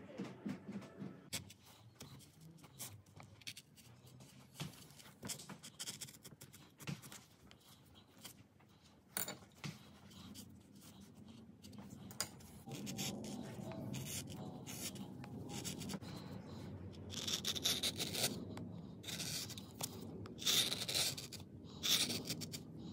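Hands and tools working on a mokulito plywood printing plate: light scratching and tapping at first, then a steady rubbing that grows into louder rustling and scraping over the last several seconds.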